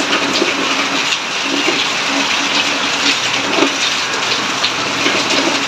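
Heavy rain falling, with rainwater streaming down off a roof edge: a steady, even rush.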